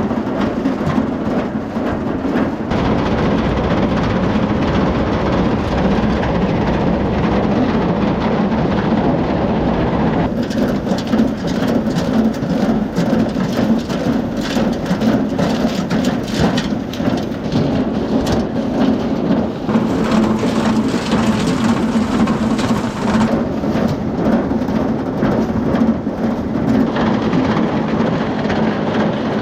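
Corn elevator conveyor running with a steady hum, ear corn rattling and clattering along it and pouring into the crib in a dense rain-like patter.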